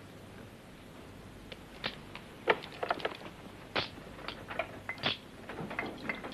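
A string of light, irregular clicks and knocks that begins about a second and a half in and continues to the end.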